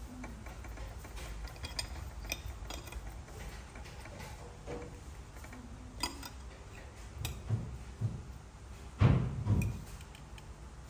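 Light scattered clicks and taps of a metal fork working rice on a plate, with two dull thumps close together about nine seconds in.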